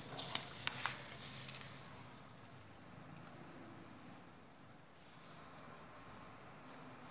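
A sheet of paper rustling and sliding on a desk as it is turned, loudest in the first two seconds, followed by a few faint taps and ticks of a pen on paper. A steady high-pitched whine runs underneath.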